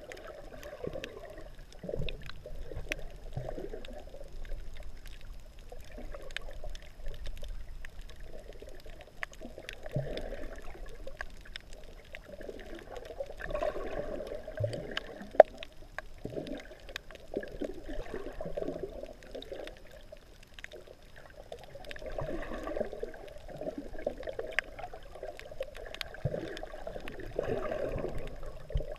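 Underwater sound heard through a submerged GoPro's waterproof housing: muffled water sloshing and swirling in slow surges, with scattered small clicks and ticks and a faint steady high tone underneath.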